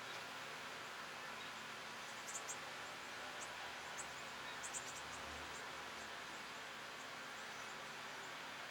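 Faint outdoor ambience: a steady hiss with a few short, high insect chirps between about two and five seconds in.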